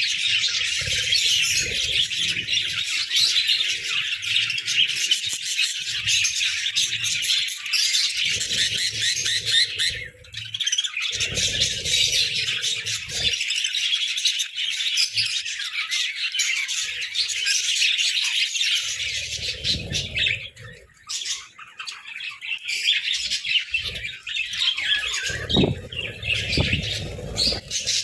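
A flock of budgerigars chattering and chirping continuously, a dense overlapping warble of high chirps. Occasional low thumps and rustles come and go underneath.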